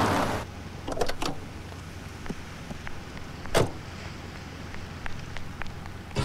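Jeep door being opened, with a few latch clicks about a second in, then shut with a single sharp knock midway, over a faint low engine hum. A rush of noise dies away at the very start.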